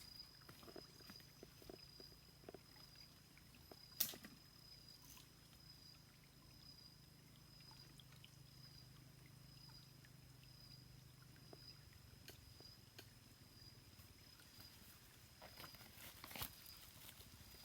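Near silence: a faint, steady high-pitched tone with a low hum underneath, broken by one sharp click about four seconds in and a few light knocks near the end.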